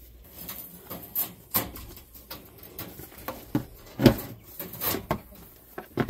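Irregular knocks and clatters of a goat kid's hooves on the hard plastic lid of a pet carrier as it climbs and stands on it, the loudest knock about four seconds in.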